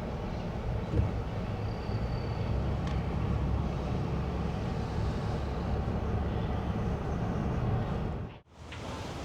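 Steady low rumble of a vehicle driving. It breaks off abruptly near the end and resumes as a thinner noise.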